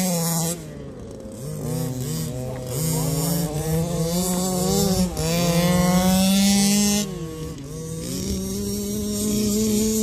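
Two 1/5-scale RC cars' 30.5 cc two-stroke petrol engines running at speed, their pitches rising and falling and crossing as the throttles are worked. The sound drops off about half a second in and again about seven seconds in, then climbs back up as they accelerate.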